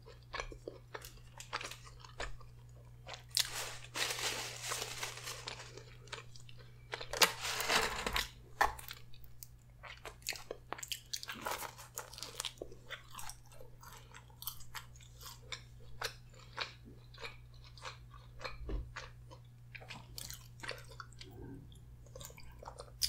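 Close-miked eating sounds: seasoned fries and a slice of pizza being bitten, crunched and chewed, with many small wet mouth clicks throughout. There are two louder crunchy stretches, about four and seven seconds in.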